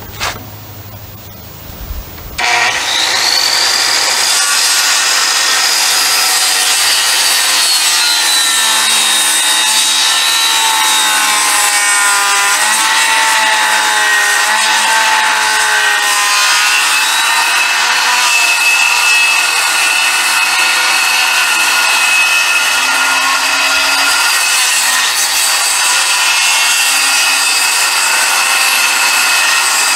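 Corded circular saw, its blade set to a 1¾-inch depth, starting up about two seconds in and ripping lengthwise along a wooden deck post. The blade's whine runs steadily from then on, its pitch dipping and wavering as it works under load through the wood.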